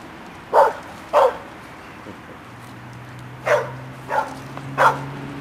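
A dog barking five short, sharp barks at uneven gaps. A low steady hum comes in about halfway through.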